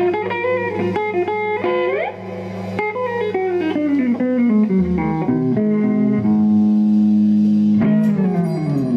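Live blues band with electric guitar and bass guitar playing the closing bars of a song: quick runs of plucked guitar notes, then a held chord about six seconds in and a falling run of notes near the end.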